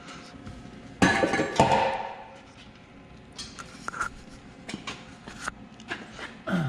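A loud metallic clang about a second in that rings briefly, then scattered lighter metal clinks and taps: steel exhaust pipe and muffler parts being knocked and handled while they are worked loose from the car.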